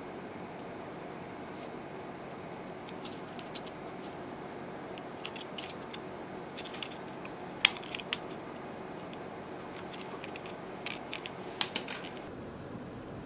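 Scattered light clicks and taps of metal tweezers handling small nail swatch tips on a card, with one sharper click about halfway through and a quick run of clicks near the end, over a steady background hiss.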